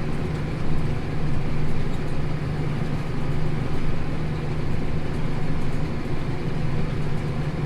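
Tractor engine running steadily under load while pulling a plough, a constant low drone.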